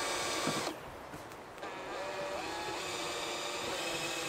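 Cordless drill running as it bores into an aluminium ladder rail, stopping under a second in. A quieter steady hum with a few held tones follows, stepping up in pitch a couple of times.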